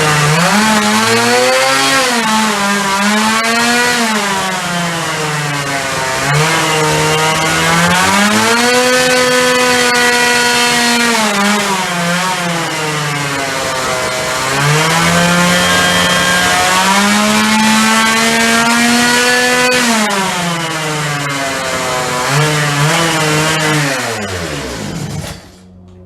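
Motorcycle engine revving, its pitch climbing and dropping back several times. Near the end it falls away and cuts off abruptly.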